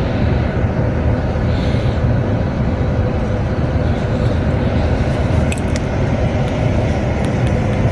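Bus diesel engine idling close by, a steady low rumble.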